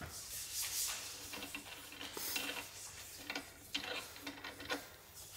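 Irregular light metallic clicks and scrapes of an engine connecting rod being handled in a bench vise as it is taken apart to change its big-end bearings.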